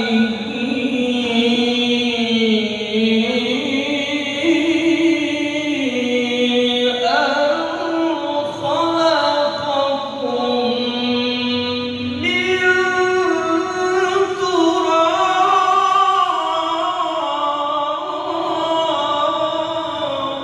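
A male qari reciting the Qur'an in melodic tilawah style, drawing out one word in long, ornamented vocal phrases that waver and glide in pitch. The melody climbs to a higher register about 7 seconds in and again about 12 seconds in.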